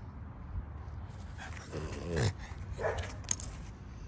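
French bulldog vocalizing in short bursts, with one whining call falling in pitch about two seconds in.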